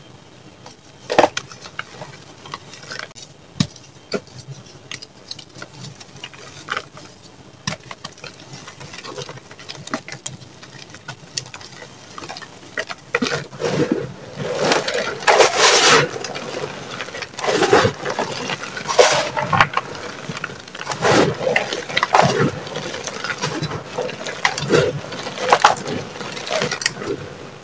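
Soft gym chalk blocks and powder being crushed and squeezed by hand, crumbling and crunching. Only scattered crackles at first, then denser, louder crunching from about halfway through.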